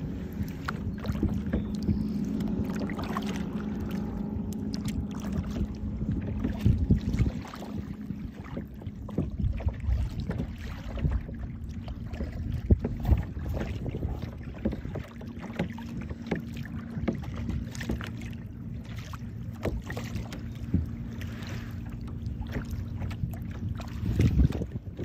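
Kayak paddling on choppy water: paddle strokes splashing and dripping, with occasional sharp knocks, over a steady low hum.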